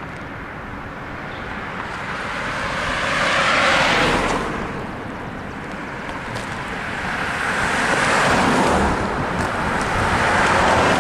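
Cars passing close by on a two-lane road, tyre and engine noise rising and falling as each goes past. One passes about four seconds in, and two more go by in the second half, the last a Jeep Wrangler near the end.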